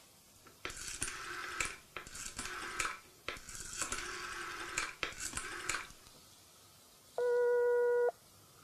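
A rotary telephone dial is turned and whirrs back for several digits, with a click between each. Near the end comes a single steady ringing tone of about a second: the ringback of the call going through.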